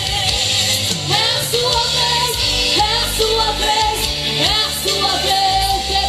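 Live gospel song: a girl singing into a microphone over a live band.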